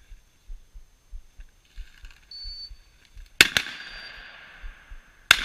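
Two shotgun shots about two seconds apart, the first about three and a half seconds in, each sharp crack echoing off across the field, fired at a flushed chukar. Soft low thumps of footsteps on the body-worn camera run underneath.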